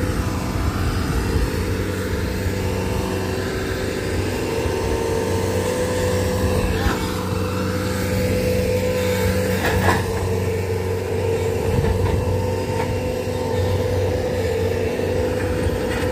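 Bobcat T190 compact track loader's diesel engine running steadily with a constant hum, with a couple of brief knocks partway through.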